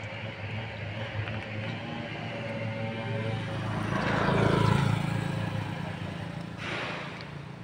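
A motorbike passing along the road: its engine grows louder to a peak about four to five seconds in, the pitch dropping as it goes by, then fades away.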